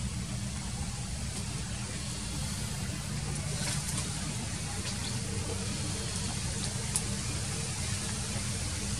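Steady outdoor background noise: a low rumble under an even hiss, with a few faint ticks about four, five and seven seconds in.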